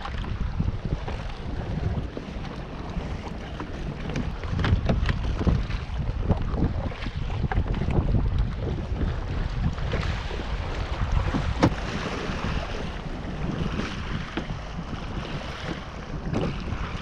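Wind gusting over the microphone in a rising and falling low rumble, with water lapping around the kayaks and a few sharp knocks, the loudest about two-thirds of the way in.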